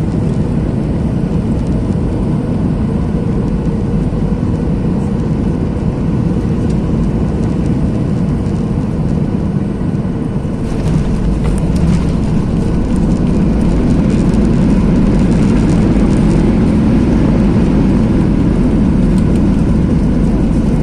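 Ryanair Boeing 737 landing: a steady loud rush of jet engines and airflow, which about ten seconds in grows louder and rougher with rattling and stays up.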